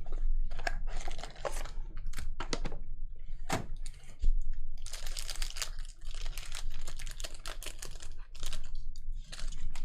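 Packs of basketball trading cards being torn open, with wrapper crinkling and cards being handled and shuffled: a quick run of clicks and rustles.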